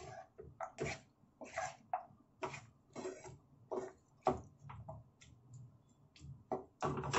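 A spatula stirring and scraping tomatoes and onions in a nonstick frying pan, in short uneven strokes about twice a second, as the tomatoes are sautéed to soften.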